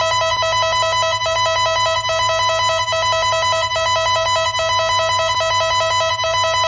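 Electronic emergency-alert alarm tone: a steady, buzzy two-pitch signal pulsing rapidly and evenly.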